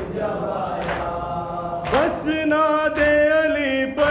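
A noha sung with matam: a group of men chant the refrain together, marked by sharp hand-on-chest slaps about once a second. About two seconds in, a lone male reciter takes up the next line, his voice wavering.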